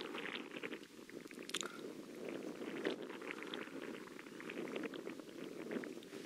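Strong, gusty wind buffeting the microphone: a continuous rumbling rush with crackling.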